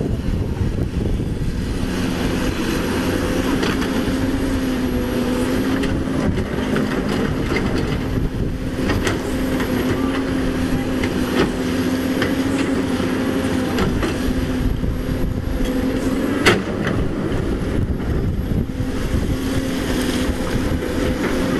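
Caterpillar 320D excavator's six-cylinder diesel engine running steadily under load while the bucket digs into breccia stone and gravel, with scattered knocks of stone on steel. One sharp, loud knock comes about sixteen seconds in, and the engine's steady tone drops away at that moment.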